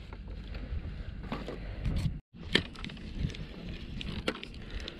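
Wind rumble on the microphone, with scattered light clicks and knocks from handling on shoreline rocks. The sound cuts out completely for a moment about two seconds in.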